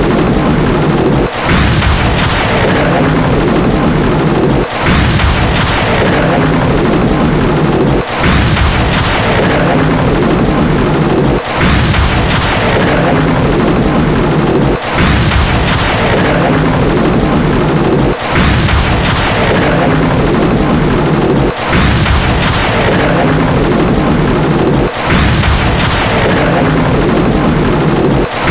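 Thunder sound effect playing in a loop: a sharp lightning crack whose hiss fades away, over a continuous heavy rumble, starting again about every three and a half seconds, eight or nine times.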